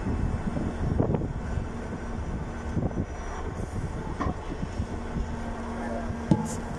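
Excavator's diesel engine running with a steady low rumble and scattered knocks. A steady hum joins in about five seconds in and stops at a sharp knock a second later.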